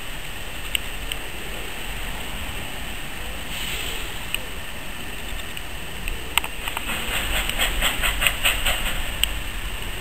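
Steam tank locomotive running slowly in over station pointwork, with a steady hiss behind it. From about six seconds in comes a quick run of sharp metallic clicks and knocks, several a second, as its wheels cross the rail joints and points.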